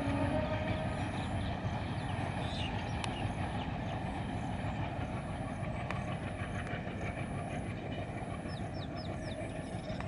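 Distant rumble of a train hauled by a WDM3A ALCO diesel locomotive running across a long river bridge, steady and slowly fading.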